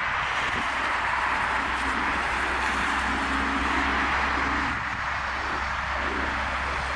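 Boeing 787-8 Dreamliner's turbofan engines at climb power just after takeoff: a steady rush of jet engine noise that slowly recedes as the airliner climbs away.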